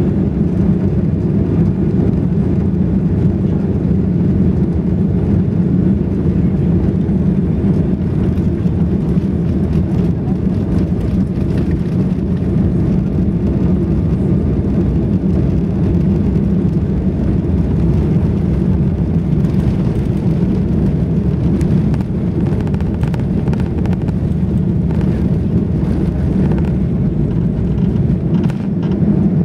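Airbus A340-600 on its takeoff roll, heard from inside the cabin over the wing: its Rolls-Royce Trent 500 engines at takeoff power and the rush of air make a steady, deep rumble. Light rattles and knocks come through more often as it gathers speed.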